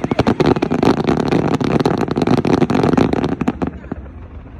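Fireworks going off in a dense, rapid barrage of bangs and crackles that stops about three and a half seconds in.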